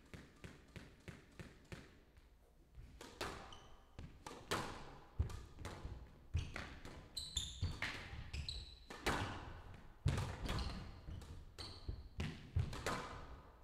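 A squash rally: the ball cracks off the rackets and smacks against the walls at an irregular pace, each hit ringing briefly in the court. Short high squeaks of court shoes on the floor come in bunches partway through and again near the end.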